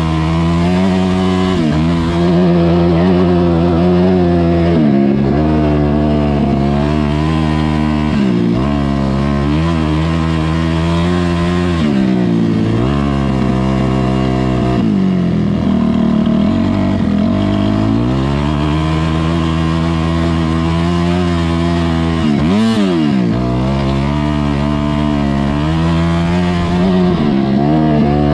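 Four-stroke dirt bike engine under way, heard from the rider's seat, its pitch climbing and dropping back many times as the throttle is opened and closed, with one sharp dip and quick climb about three-quarters of the way through.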